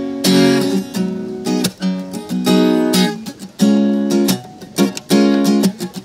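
Acoustic guitar strummed in a steady rhythm, chords ringing between strokes, with brief dips between phrases.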